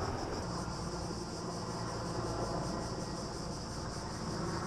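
Cicadas buzzing steadily over a low engine hum and a rushing noise.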